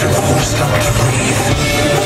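Loud live orchestral rock music: a string orchestra and rock band playing together, with sustained held notes, in a large arena.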